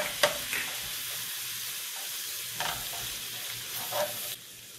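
Sliced onion, garlic and flour sizzling in hot oil and beef drippings in a nonstick skillet as the flour is worked in for a gravy, with a few sharp clicks; the sizzle drops away suddenly near the end.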